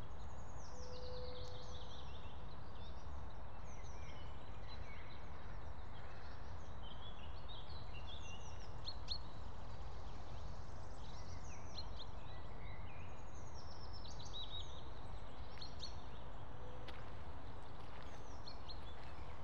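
Songbirds singing in spring woodland: many short chirps and quick descending trills from several birds, overlapping throughout, over a steady low rumble.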